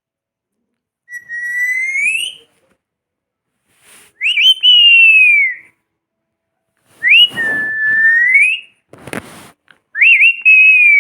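A pet parrot whistling four times, each a drawn-out whistle sliding up and then down in pitch, with a brief noisy rustle between the last two.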